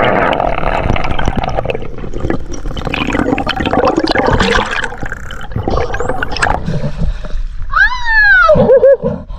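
Water rushing and bubbling around the microphone, as when it is in or just under the sea. Near the end comes a high squeal that rises and then falls in pitch.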